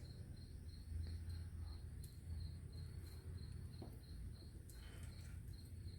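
Faint insect chirping: a high, evenly repeated chirp about three times a second over a low hum, with a couple of faint clicks.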